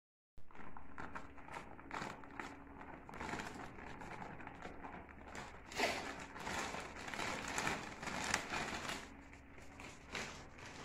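Plastic bag of maida (all-purpose flour) crinkling and rustling as it is tipped and emptied into a large metal bowl, with louder crackling bursts about halfway through.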